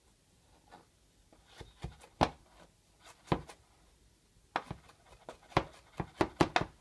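Knife strikes on a wooden cutting board, chopping vegetables: a few scattered knocks at first, then a quicker run of chops, about four a second, near the end.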